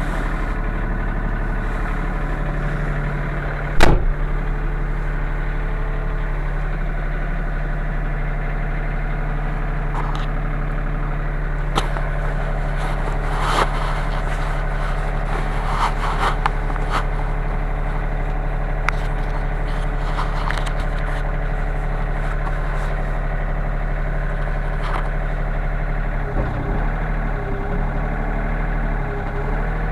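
Sany SY35U mini excavator's diesel engine idling steadily, heard from inside the cab. There is a sharp knock about four seconds in and scattered clicks and rattles later. Near the end the engine note wavers.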